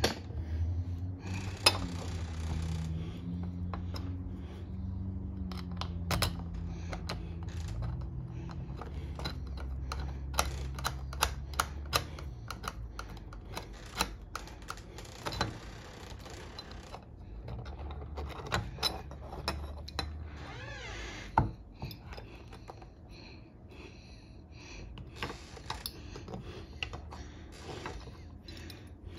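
Irregular small clicks, taps and light metallic clinks of deadbolt lock hardware being handled and fitted into a door, with a low rumble during roughly the first twelve seconds.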